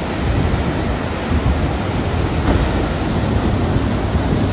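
Steady loud rush of whitewater rapids, with the low rumble of a jet boat's engine under load as it drives up through them.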